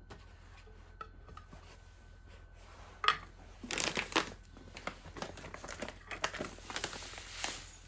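Crinkling and rustling of something being handled, beginning with a sharp knock about three seconds in and continuing in an irregular run of crackles.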